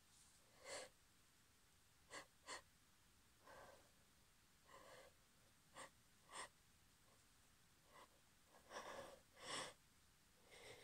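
A woman's faint, short intakes of breath and sniffs, about nine, spaced irregularly, with two longer ones near the end: the catching breaths of a hay fever sneeze building up.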